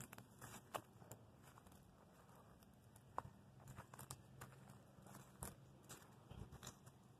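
Near silence, broken by faint scattered clicks and crackles.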